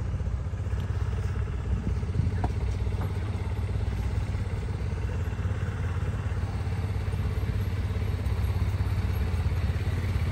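An engine running steadily at low speed with an even pulse, picking up slightly near the end, and a couple of light clanks about two to three seconds in.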